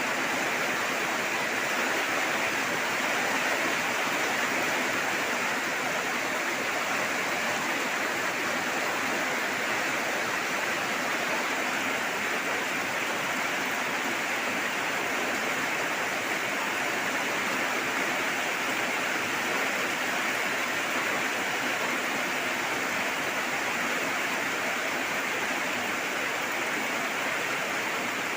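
Steady rain falling, an even continuous hiss with no separate drops or thunder standing out.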